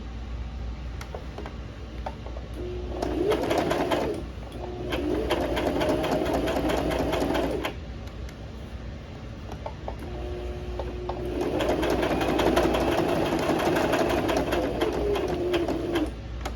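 Electric sewing machine stitching in three runs with short pauses between, the needle ticking rapidly over the motor's whine, which rises as each run speeds up and falls as it slows to a stop.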